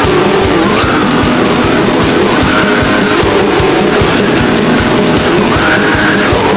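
Loud heavy metal music with rapid, dense drum hits under a wall of distorted guitar. A higher-pitched phrase recurs about every second and a half.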